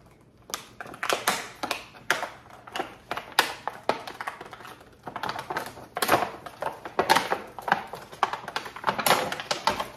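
Clear plastic gift bag crinkling and crackling as a gloved hand opens it and pulls out the items, a quick irregular run of snaps and rustles.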